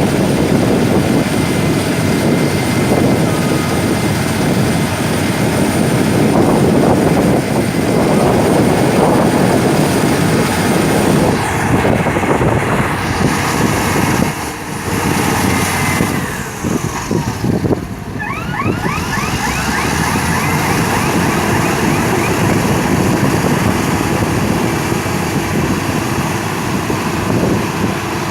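Caterpillar D6H LGP track bulldozer running under load, its diesel engine and tracks making a loud, continuous rough noise. The level dips briefly about halfway through, followed by a few short squeals.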